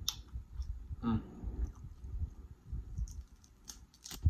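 Close-miked chewing and wet mouth sounds with scattered small clicks. Near the end a boiled snow crab leg is snapped apart by hand, a sharp crack of shell that is the loudest sound.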